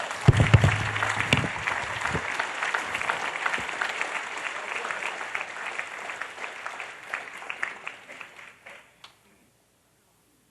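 Congregation applauding, thinning out and dying away about nine seconds in. A few low thuds sound in the first two seconds.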